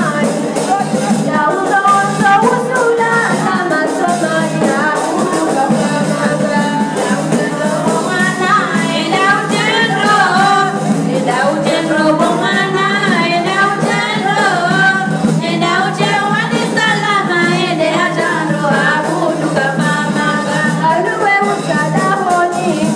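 Women singing a wedding song, the lead voice amplified through a microphone, over a steady backing of music.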